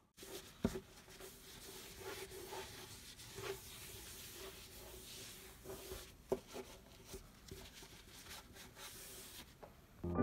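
Faint rubbing and scraping of things handled on a hard surface, with a few small sharp clicks, the clearest about half a second in and about six seconds in, over a faint steady hum.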